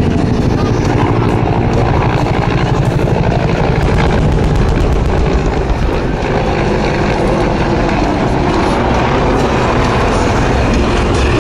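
Military rotorcraft flying low: a loud, steady rumble of turbine engines and rotors with a fast low pulsing beat.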